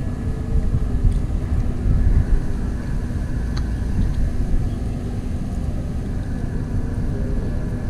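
Steady low outdoor rumble with a faint constant hum running under it.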